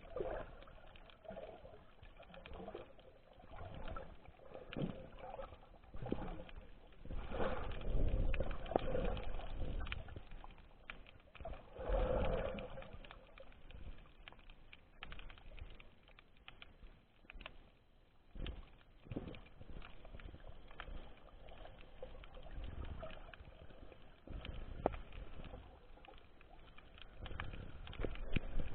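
Muffled underwater noise picked up by a camera in a waterproof housing: irregular low swells of water movement with scattered sharp clicks, loudest about eight and twelve seconds in.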